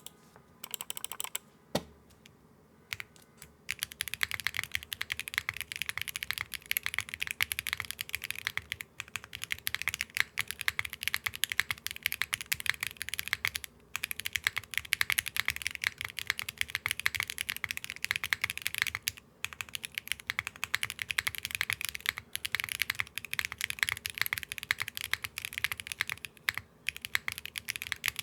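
Typing on a Neo60 Core mechanical keyboard with Akko Creamy Yellow Pro V5 linear switches, a carbon-fibre plate, GMK keycaps and no foam. A few single keystrokes come first, then fast continuous typing from about four seconds in, with brief pauses. The keys have a medium tone, neither clacky nor thocky, with a soft bottom-out.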